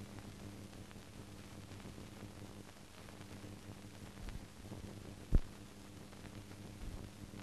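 No recorded sound, only a steady electrical hum under faint hiss, with a single sharp click about five seconds in.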